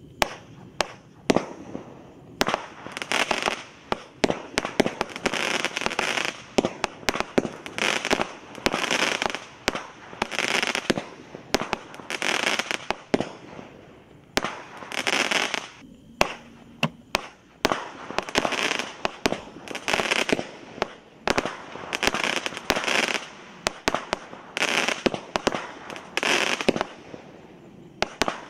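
A Spook Fireworks 'Flaming Fireballs' 16-shot barrage cake firing shot after shot. Each sharp launch bang comes roughly every one and a half seconds and is followed by about a second of crackling, with a short lull about halfway through.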